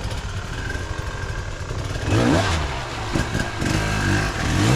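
Enduro dirt bike engine revving hard, its pitch rising and falling over and over as the throttle is blipped, getting louder from about two seconds in.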